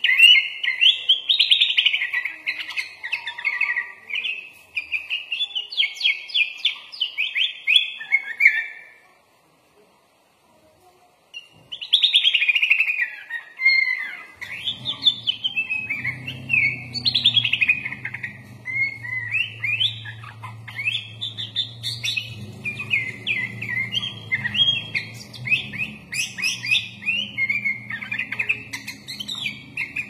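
Sooty-headed bulbul singing a fast, varied chattering song packed with mimicked phrases of other birds. It breaks off for about three seconds a third of the way in, then resumes. A faint low hum joins under the song about halfway through.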